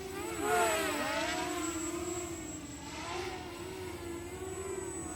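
Small quadcopter's electric motors and propellers whining, the pitch swooping up and down as the throttle changes, most sharply about a second in and again around three seconds in. The pilot reckons the drone is losing power.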